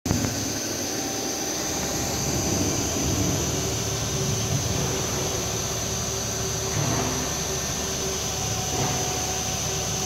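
Roboze industrial 3D printer running while it prints a PEEK part: a steady machine hum with a high whine, its motor tones changing pitch a couple of times as the print head moves.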